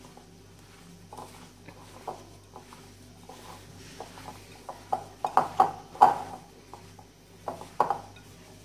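A hand squeezing and kneading buttery crushed biscuit crumbs in a glass bowl, with scattered light clicks and taps that are loudest about five to six seconds in.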